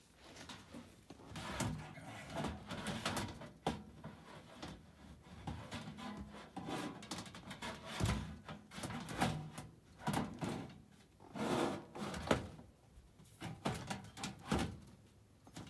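Sheet-metal blower housing, fitted with a new ECM blower motor, being handled and slid back into the cabinet of an ICP air handler: irregular metal clunks, knocks and scrapes, with the sharpest knocks about eight and twelve seconds in.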